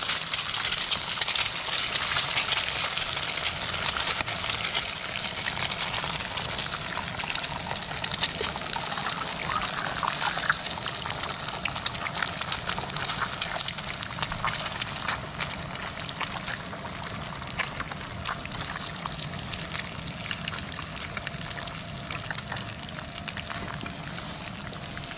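Eggs frying in hot oil in a pan: a steady sizzle full of fine crackles. It is loudest at first and eases off gradually.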